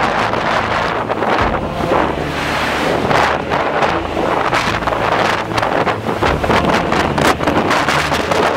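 Hurricane-force bora wind gusting hard against the microphone, loud rushing noise that surges and eases every second or so, with heavy low buffeting rumble.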